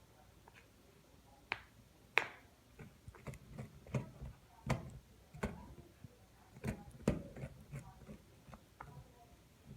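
Corgi puppy gnawing on an antler: irregular clicks and crunches of teeth grinding on antler, starting about a second and a half in and coming several times a second after that.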